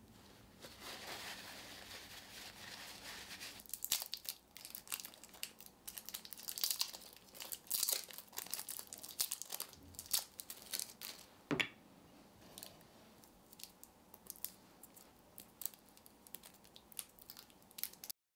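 Plastic wrapping crinkling and rustling: a soft rustle for the first few seconds, then irregular sharp crackles.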